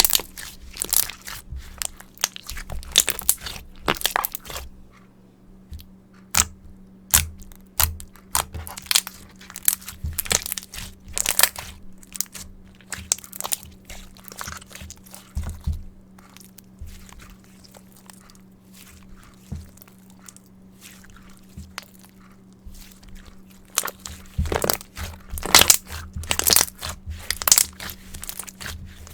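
Slime being squeezed and pressed by hand, giving irregular sticky crackles and popping clicks. They come thick at the start and again near the end, with only scattered pops in between.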